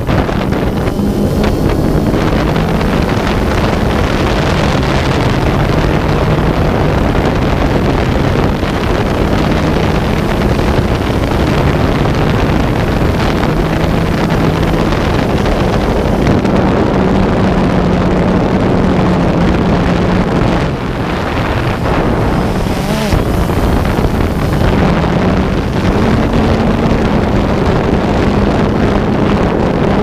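A motor running steadily under heavy wind rush on the microphone, its pitch stepping up and down every few seconds, with the wash of water and waves.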